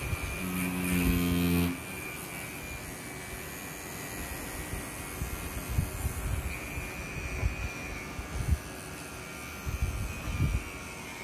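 Wireless rotary tattoo pen running with a steady electric buzz and a thin high whine. A louder, deeper hum comes in for about a second near the start, and a few soft knocks of handling follow later.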